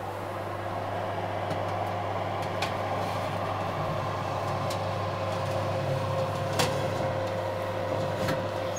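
Steady hum of a fan-forced oven running with its door open, with a few light clicks as a springform pan on a ceramic plate is set onto the wire oven rack.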